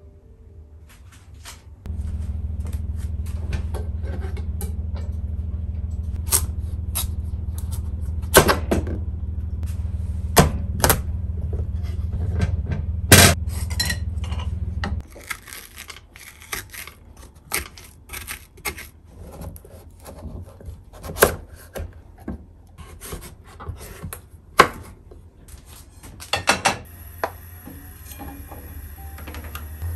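Kitchen prep sounds: knocks, taps and clatters of utensils and squash halves on a wooden cutting board, over a steady low hum that cuts off suddenly about halfway through. Near the end, butter goes into a frying pan and a steady hiss starts as it melts.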